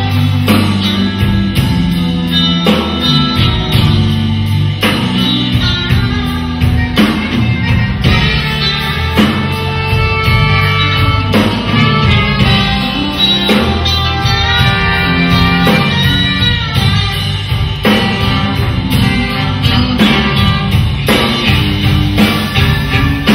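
Live band playing an upbeat number, led by a drum kit with a steady beat over bass and electric guitar.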